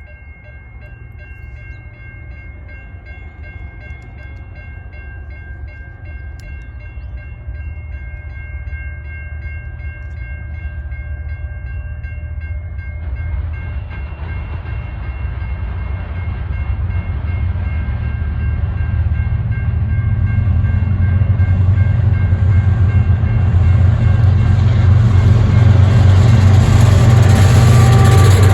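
Freight train led by GE diesel locomotives approaching: a distant horn chord holds steady for about the first half and cuts off, then the locomotives' deep engine rumble and the rail noise swell steadily louder.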